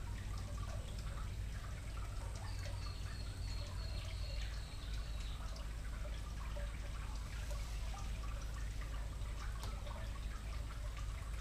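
Outdoor background ambience: a steady low rumble with faint scattered ticks, and a thin high whistle lasting about three seconds, starting about two and a half seconds in.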